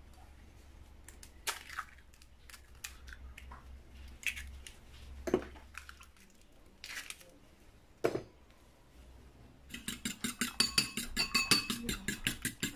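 Eggs cracked against the rim of a small bowl, a few separate sharp taps, then a fork beating the eggs in the bowl: rapid, regular clinking of the fork against the bowl from about ten seconds in.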